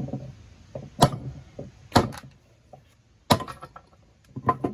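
Hammer blows knocking brittle slag off a lump of cast iron on a small anvil: three sharp strikes about a second apart, with lighter knocks between them.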